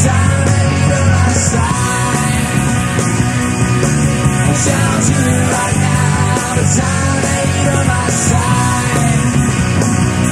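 Live rock band playing loud, driving music in a concert recording.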